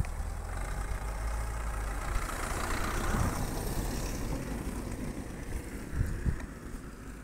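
A road vehicle's engine running close by, with a low steady hum and a rushing noise that swells about two seconds in and fades a couple of seconds later, as a vehicle goes past.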